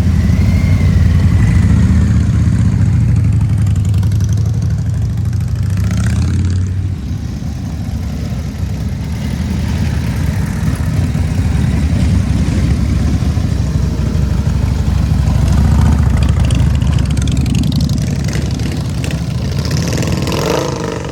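Harley-Davidson V-twin motorcycle engine running at idle, with a deep low rumble. It dips about seven seconds in and builds back up later.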